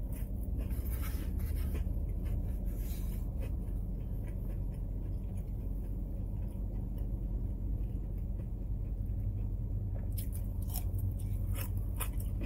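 Close-up eating sounds: chewing a pickle spear, with scattered small clicks and scrapes of a foam takeout container being handled, denser near the end, over a steady low hum inside a car.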